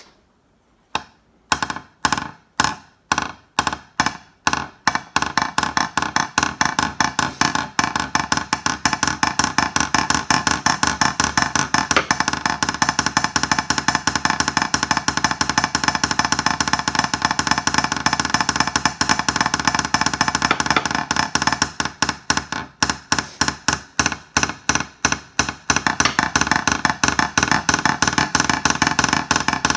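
Snare drum roll played with sticks: separate strokes at first that quickly speed up into a very fast, continuous roll, which loosens into distinct fast strokes for the last several seconds before stopping.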